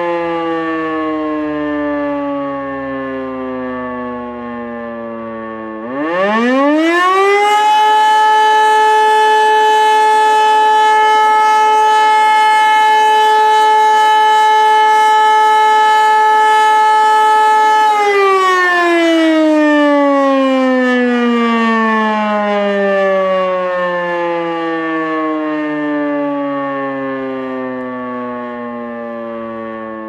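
E57 electromechanical siren sounding the 'Feueralarm' test signal. It winds down from a previous blast, starts up again about six seconds in and rises quickly to a loud, steady wail that holds for about twelve seconds. Then it cuts out and its pitch slowly falls as the rotor spins down.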